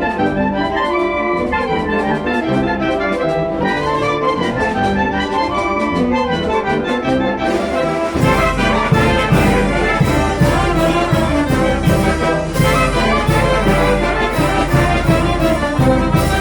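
Mexican banda filarmónica (brass and wind band) playing, trumpets and trombones carrying the tune. About halfway through, a heavier, pulsing low part comes in and the music gets fuller.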